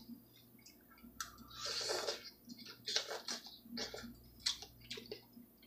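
A man eating instant noodles from a paper cup with a fork: soft slurping and chewing, with a few small sharp clicks.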